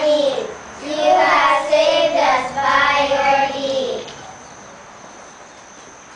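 Children singing a song with long held notes, which ends about four seconds in; after that only quiet room noise.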